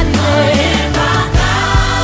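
Background music: a song with sung vocals over a steady drum beat and sustained bass notes.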